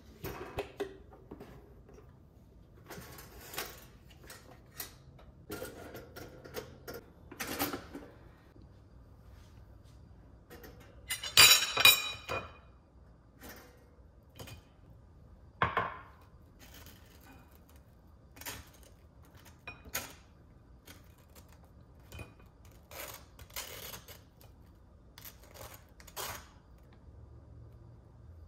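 Kitchen handling sounds at a toaster and plate: scattered clicks, knocks and clinks of toast, a ceramic plate and a knife spreading jam. The loudest is a short metallic clatter with a brief ring about twelve seconds in.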